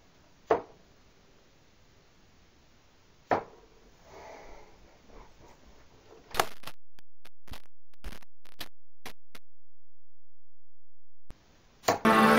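Two darts hitting a bristle dartboard, one sharp thud about half a second in and another about three seconds in. Faint rustling follows as the darts are pulled out, then a string of sharp clicks, and electronic music starts at the very end.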